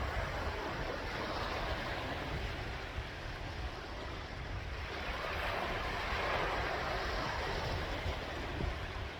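Sea waves washing in, swelling louder twice, over a steady low rumble.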